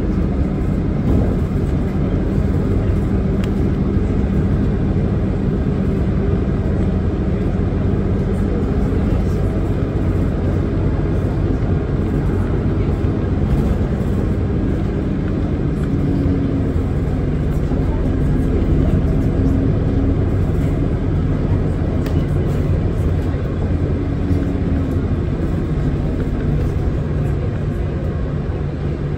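Hino Blue Ribbon City Hybrid bus on the move, heard from inside the cabin: a steady low drive drone mixed with road noise, rising and falling slightly in pitch about halfway through.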